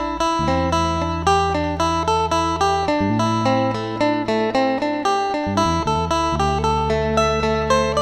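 Background music led by a plucked guitar, with a steady run of notes over a bass line that changes chord about every three seconds.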